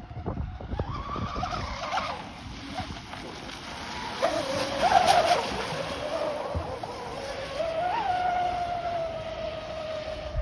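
RC catamaran speedboat's motor whining at speed as it races across the water. The pitch rises and falls through the turns and is loudest about five seconds in, then settles into a steady, slowly falling whine as the boat runs off.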